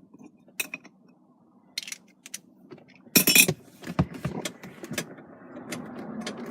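Metal clinks and rattles of a 17 mm socket on an extension being fitted and turned on the steering-wheel hub bolt. There is a loud cluster of clinks a little over three seconds in, then a run of small quick clicks.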